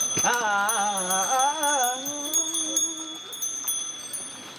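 Music: a single wavering melody line, sung or played, held for about three seconds over faint steady high tones, then fading.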